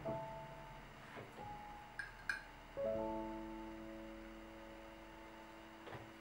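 Slow, soft piano music: a few notes and chords struck about a second apart, each held and slowly fading. Two light clinks come about two seconds in.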